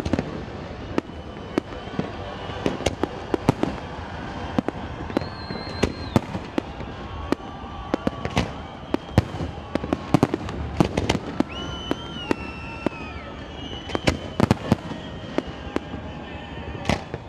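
Aerial fireworks display: shells bursting in a rapid, irregular series of sharp bangs, several a second at times, with a few drawn-out high tones in between.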